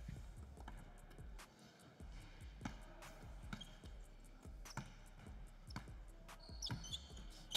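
Basketball dribbled on a hardwood court, a string of short bounces repeating roughly every half second to a second, over faint background music.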